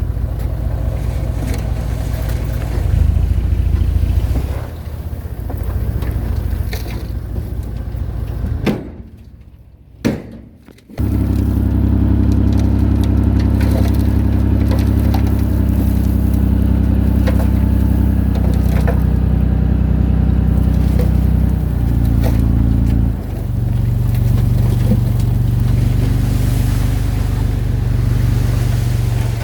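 Diesel engine of earthmoving machinery running steadily. The sound drops away suddenly for about two seconds near the nine-second mark, with a single click, then comes back strong. The engine note shifts around twenty-three seconds in.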